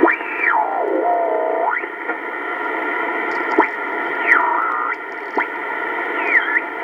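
HF ham transceiver (Kenwood TS-820S) receiving the 80-meter band through its speaker: band noise with several steady heterodyne tones and whistles that glide down and back up as signals are tuned across, broken by a few short static crackles.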